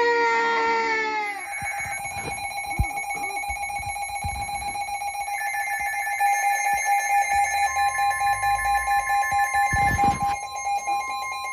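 Emergency Alert System attention signal: a steady, harsh alarm tone coming over the radio, announcing an incoming tornado warning. It starts about a second in, and a second, slightly higher tone joins it about two-thirds of the way through.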